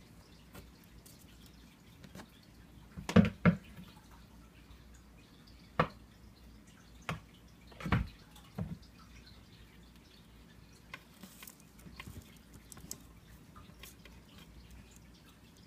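A few scattered sharp taps and clicks. Two loud ones come close together about three seconds in, and a loud one comes about eight seconds in; fainter ticks follow.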